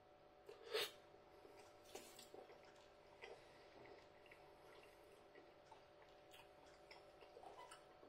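Near silence with faint mouth clicks of a man chewing a mouthful of chilli con carne and rice; the loudest click comes about a second in.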